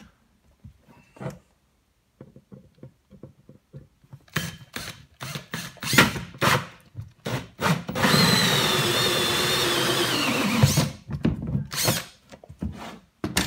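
Cordless drill driving a bi-metal hole saw through the plastic wall of an ammo crate. Short stuttering bursts and knocks come as the saw starts to bite, then about three seconds of steady drilling whose whine drops in pitch as it cuts through, followed by a few knocks.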